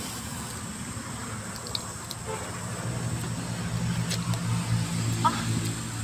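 A motor vehicle's engine hum comes in about halfway and grows louder, over a few light clicks of fingers picking apart grilled fish on a banana leaf.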